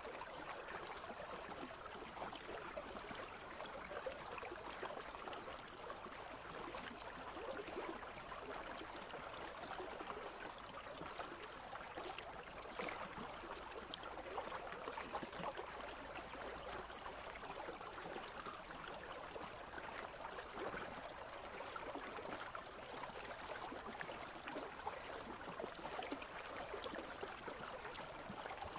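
A country stream flowing over stones: a steady babble of running water with many small splashes and trickles.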